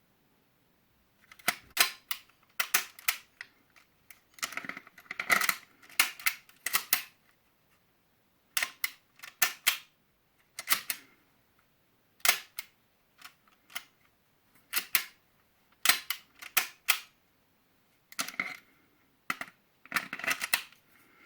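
Umarex Glock Gen 5 replica pistol being handled: sharp metallic clicks and clacks in irregular groups, some with a brief rattle, with short pauses between them.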